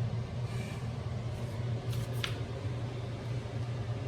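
A few short hisses of WD-40 aerosol spray being applied to the squeaking parts of a Dualtron Mini electric scooter, over a steady low hum.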